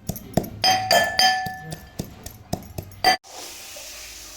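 Dishes and utensils clinking together in a string of sharp knocks, some ringing on briefly. They stop abruptly about three seconds in, and a steady hiss follows.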